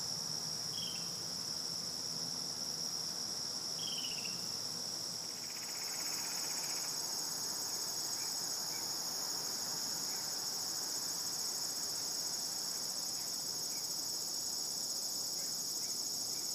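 Steady, high-pitched chorus of insects trilling without a break, with a couple of short falling chirps about one second and four seconds in.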